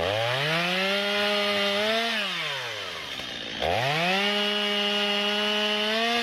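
Chainsaw revved to full throttle and held steady while cutting through wood, then let back down to idle about two to three seconds in. It is revved up and held at full speed again for the rest.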